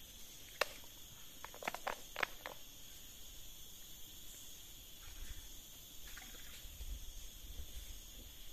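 Steady high-pitched drone of an insect chorus, with a few sharp clicks about half a second and two seconds in, and a low rumble in the second half.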